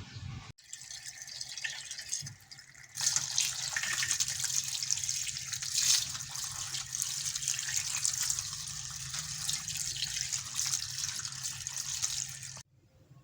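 Water running steadily from a tap, starting about three seconds in and cutting off abruptly near the end.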